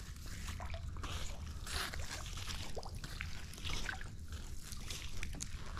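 Wet magnet-fishing rope being hauled up hand over hand, with faint rustles and trickles of water running off it, over a steady low rumble.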